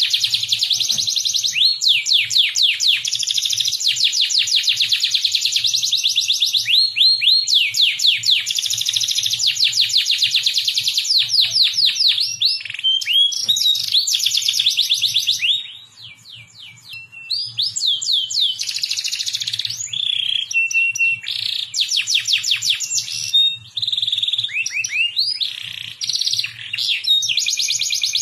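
Domestic canary singing a long song of fast trills, each made of rapidly repeated falling notes, one trill running into the next with a different note type. There is a short pause about halfway through.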